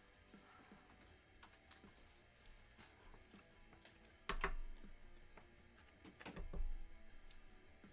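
Sports cards and plastic card holders being handled on a table: light clicks and taps throughout, with two louder knocks about four and six seconds in. Faint background music.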